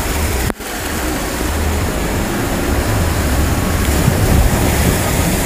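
Floodwater rushing past: a steady, loud rush of muddy water with a low rumble underneath. The sound drops out for an instant about half a second in.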